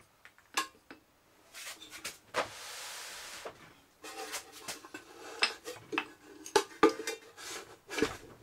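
Hard plastic and metal casing parts of a Kingsong S20 electric unicycle knocking and clattering as they are handled and lifted off. There is a scraping slide lasting about a second, nearly three seconds in, followed by a quick run of clicks and knocks.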